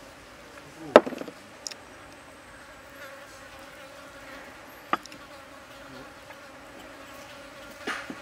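Steady insect buzzing, with a sharp knock about a second in and lighter clicks in the middle and near the end.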